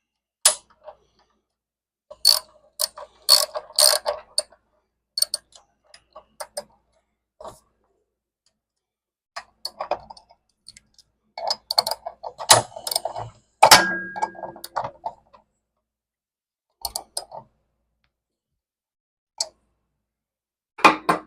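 Intermittent metallic clicks and clatter of a wrench working the arbor bolt as a new blade is tightened onto a Delta miter saw, in short bursts with pauses between. One louder clank about 14 seconds in rings briefly.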